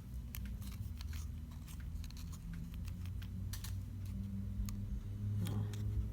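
Irregular small clicks and crackles of a smartphone's plastic parts and tape being worked apart by hand, over a low steady hum.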